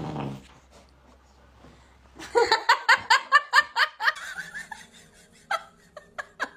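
A person laughing hard in a quick run of short bursts starting about two seconds in, then a few more short laughs near the end.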